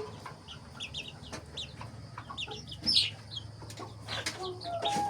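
Local chickens clucking, with many short high-pitched calls scattered throughout and one louder call about three seconds in.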